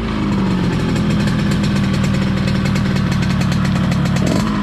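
Yamaha RX-King two-stroke single-cylinder engine idling steadily with a 'ngorok' (snoring, growly) exhaust note from its opened-up stock muffler.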